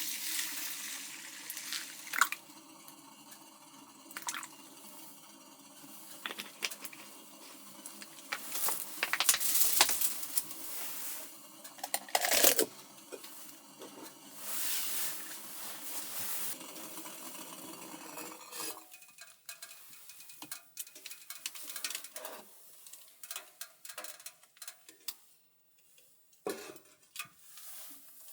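Cookware and utensils clinking and knocking as they are handled, over a steady hiss that stops suddenly about two-thirds of the way through; after that come scattered lighter clicks and taps.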